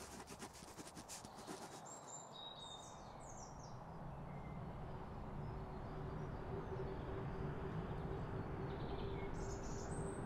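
Outdoor ambience of small birds chirping a few times over a steady low background rumble that slowly grows louder. A light crackle dies away in the first second or so.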